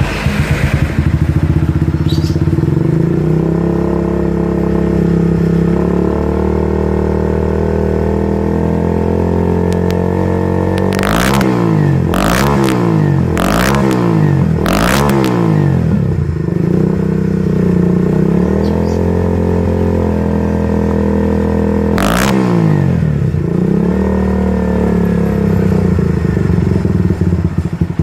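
Kawasaki W175 single-cylinder engine idling through a Spartans Classic HS aftermarket muffler. Its throttle is blipped four times in quick succession around the middle and once more later, each rev rising and dropping back to idle.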